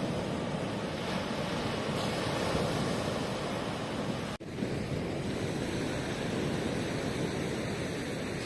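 Ocean surf washing steadily onto the shore, with a brief sudden break in the sound about four seconds in.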